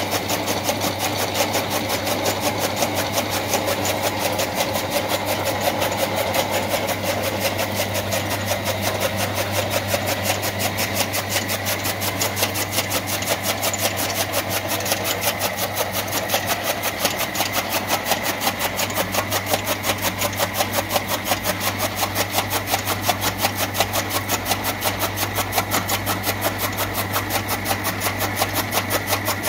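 Electric-motor-driven chaff cutter (toka machine) running steadily, its belt-driven flywheel blades chopping green fodder in a fast, even rhythm over a constant motor hum.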